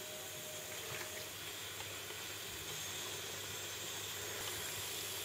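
Flour-coated pork cutlets frying in hot oil in a frying pan: a faint, steady sizzling hiss with a few small crackles.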